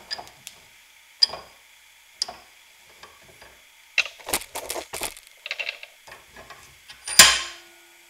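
Bench vise being worked to clamp a heavy battery cable: scattered metal clicks and clanks, a quick run of them about halfway through, then one loud clank near the end that rings briefly.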